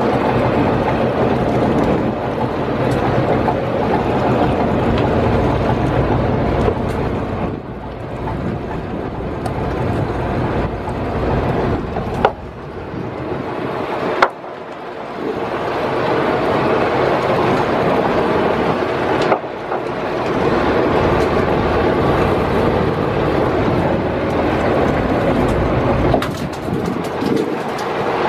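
Wind rushing over the microphone and seawater washing against the hull of a small open boat, with a few sharp knocks.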